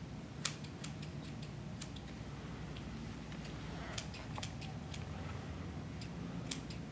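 Dog-grooming shears snipping hair, about a dozen short sharp snips at irregular intervals over a steady low hum.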